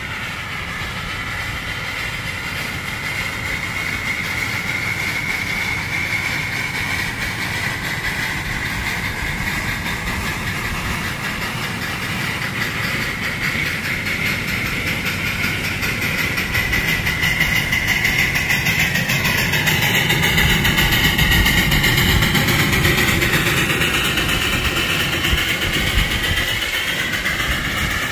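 A ride-on 1:12-scale live steam locomotive pulling freight cars along 4.75-inch gauge track, running steadily and getting louder as it draws close about two-thirds of the way through. A high tone bends in pitch as it passes.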